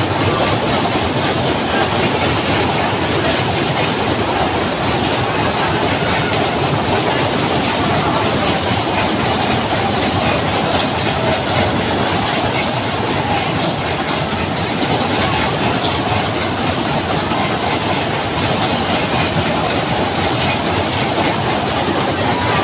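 Fairground ride machinery running: a loud, steady mechanical rumble with a continuous rattling clatter.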